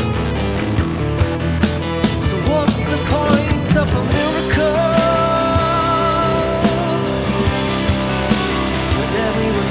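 Rock band playing an instrumental passage: drums and bass under a lead line that bends up and then holds one long note with vibrato through the middle of the passage.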